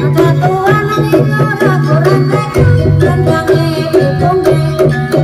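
Banyumasan-style gamelan playing for a kuda kepang dance: quick, dense drum strokes and struck metal keys over a steady low gong-like drone, with a wavering melodic line above them from about a second in.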